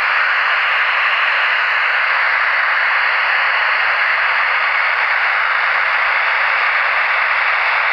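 Steady FM receiver hiss from a handheld VHF/UHF ham radio's speaker, squelch open and tuned to the AO-51 satellite downlink, with no voices coming through: only noise, no readable signal.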